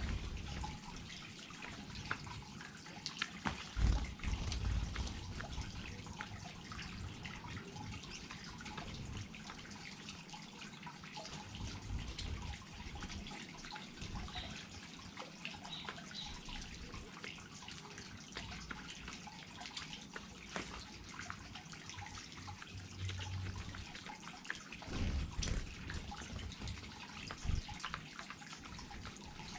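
Small garden waterfall running: water trickling and splashing steadily, with drips.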